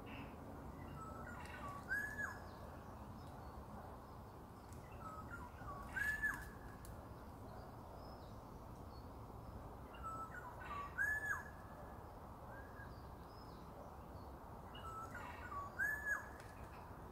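Black-naped oriole singing: a short fluty whistled phrase, repeated four times about every four to five seconds.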